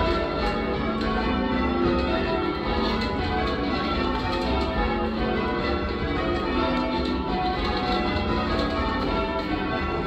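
Change ringing on a ring of eight church bells cast in 1878 by John Warner and Sons, the bells striking one after another in a steady, unbroken stream of overlapping ringing tones, heard from the ringing chamber below them.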